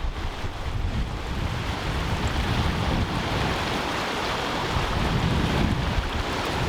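Wind buffeting the microphone with a low rumble, over the steady rush of river rapids.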